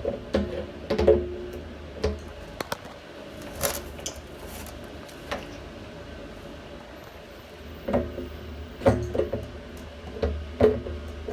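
Irregular clicks and clinks of a wrench working the plastic nut of a float valve on a water tank, some with a short ringing tone, over a low steady hum.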